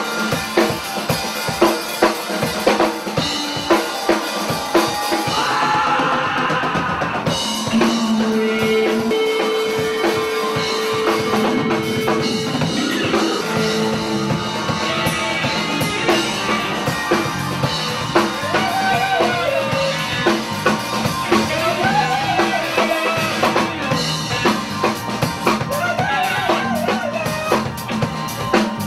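Music with a steady drum-kit beat of bass drum and snare, with held notes and a wavering melody line over it.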